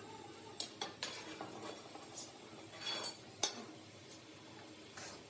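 Light metal clinks and taps, a few sharp strikes spread over the seconds, with one louder clink about three and a half seconds in, as metal tools and parts are handled.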